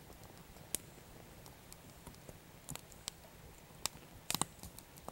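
Faint, scattered sharp clicks and crackles, a few single ones spread apart and a quick cluster of several near the end, over a low steady background.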